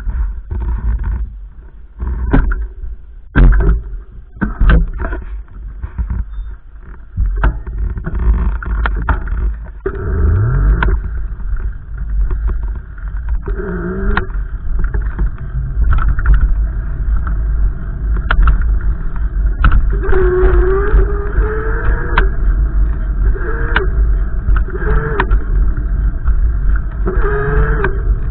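Wind buffeting the microphone: a constant deep rumble broken by many sudden thumps of gusts. A few wavering tones rise and fall behind it, about a third of the way in, near the middle and near the end.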